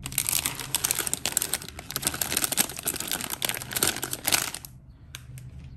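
Thin clear plastic packaging crinkling and rustling as it is handled, for about four and a half seconds, followed by two short clicks.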